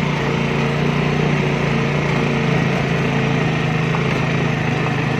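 Motorcycle engine running steadily while riding, a constant hum that holds the same pitch throughout.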